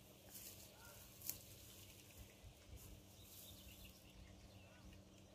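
Faint, brief jingles of a small bell bite alarm clipped to a fishing rod tip, the sharpest about a second in, ringing on and off as a fish tugs at the bait. Faint bird chirps behind.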